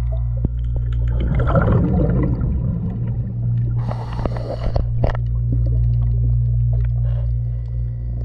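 Underwater sound of a diver breathing through a scuba regulator under a boat hull, over a steady low hum. A burst of exhaled bubbles comes about a second in and a hissing inhale around four seconds in, with scattered clicks and scrapes throughout.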